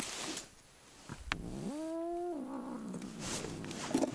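Domestic cat giving a single meow near the middle, about a second long, rising at the start, holding, then trailing off lower. A sharp click comes just before it.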